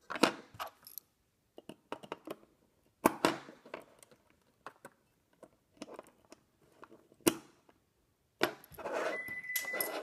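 Scattered sharp clicks, taps and light metallic clatter of small wires, a little hand tool and a circuit board being handled on a work table while power leads are fitted into a screw terminal. The last second and a half is denser rustling and handling, with a brief steady high tone near the end.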